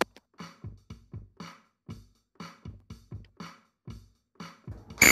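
Countdown-timer music: a quick, even drum-machine beat of low kicks and higher ticks, running while a quiz question's answer time counts down. Right at the end a loud, bright electronic tone marks time running out.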